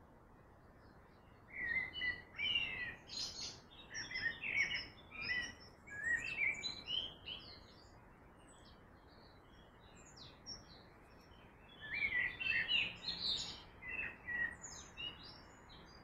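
Songbirds singing: a run of quick chirping and warbling phrases for about six seconds, a pause with a single note, then another burst of song about twelve seconds in, over a steady background hiss.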